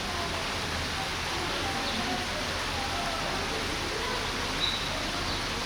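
Steady, even rushing background noise with faint, scattered distant voices.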